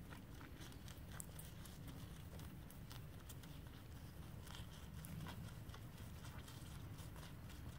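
Appaloosa mule walking under saddle on dirt: faint, irregular hoofbeats and light clicks over a steady low rumble.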